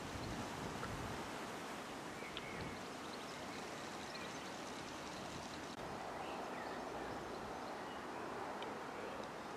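Steady outdoor background noise, with a few faint, short, high chirps scattered through it.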